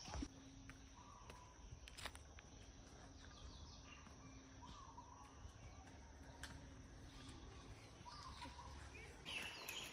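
Faint forest ambience with birds chirping now and then, more strongly near the end, and a few light clicks.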